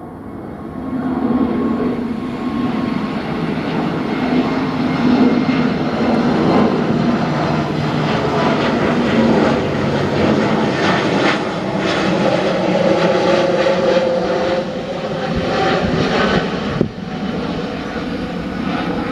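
Airbus airliner's twin jet engines at take-off thrust, a loud roar that swells about a second in and holds, its pitch slowly shifting as the aircraft moves.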